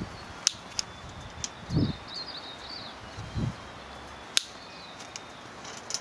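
Fencing crimping tool clicking as its jaws squeeze an alloy crimp sleeve onto electric-fence wire: a few sharp clicks, the loudest about four and a half seconds in, with two short low thumps of handling between them. A bird chirps in the background.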